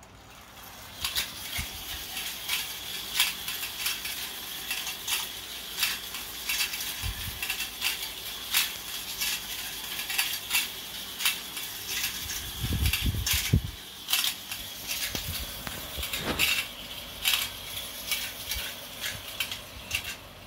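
Marx Commodore Vanderbilt clockwork tin toy locomotive running around a loop of tin three-rail track: its wind-up motor runs with a steady metallic rattle and many sharp clicks. It starts about a second in, when the loco is let go.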